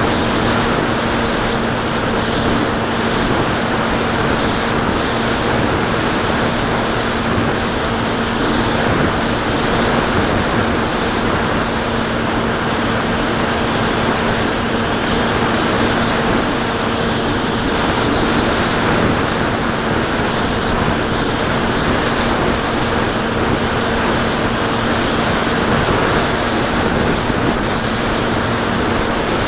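Bixler 2 RC plane's brushless electric motor and 8x5 propeller running steadily in flight, a constant hum heard from a camera on the airframe, mixed with heavy rushing airflow noise.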